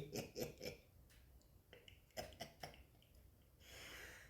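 Faint, short voiced sounds from a person: a quick run of them at the start and three more a little after two seconds in, then a brief soft hiss near the end.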